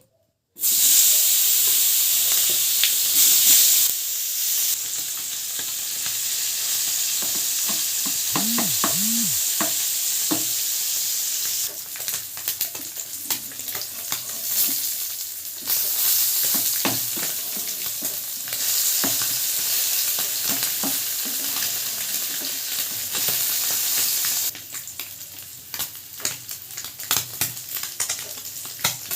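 Small fish frying in hot oil, a loud steady sizzle with the scrape and clink of a spatula stirring them in the pan. The sizzle steps up and down in level several times and drops lower for the last few seconds.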